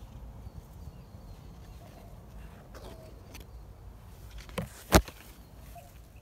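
Outdoor ambience: a low rumble of wind on the microphone with a few faint bird chirps, and near the end two sharp clicks close together, the second much louder.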